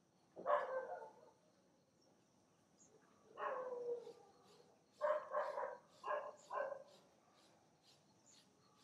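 A dog barking: one bark, a longer one a few seconds later, then a quick run of four or five barks.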